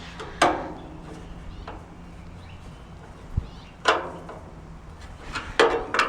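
Metal grill panels and hardware knocking and clanking, each hit ringing briefly: one about half a second in, one about 4 s in and two close together near the end.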